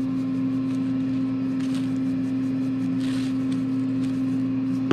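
A steady low electrical hum from a running kitchen appliance, with the soft shaking of a pepper shaker twice over it, about a second and a half and three seconds in, as pepper is sprinkled on a quail.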